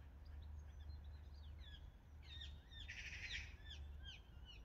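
Faint outdoor birdsong: many short, quick, falling chirps from small birds, with a harsh caw about three seconds in, over a low steady rumble.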